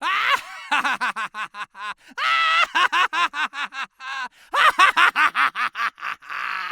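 Cartoon emote effect: an exaggerated cartoon voice laughing in quick staccato syllables, about five a second, in three runs.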